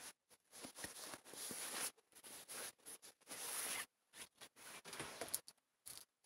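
Pigeon pecking at grain in a plastic bowl, the grain rattling and scraping against the bowl in irregular short bursts with brief gaps between them.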